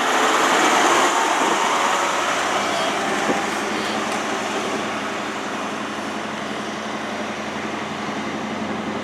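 High Speed Train (InterCity 125) pulling out of the station, its Mark 3 coaches rolling past with a steady rush of wheel and rail noise. It is loudest about a second in and eases off gradually.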